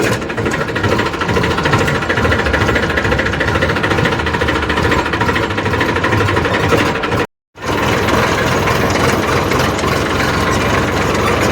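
Eicher 380 tractor's diesel engine running as the tractor is driven out. The sound is steady throughout, except for a brief gap of total silence about seven seconds in.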